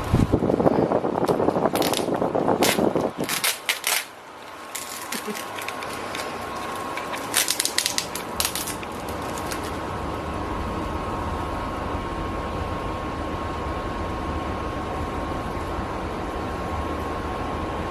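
Plastic packaging crinkling and crackling in two short spells of sharp clicks, over a steady low background hum.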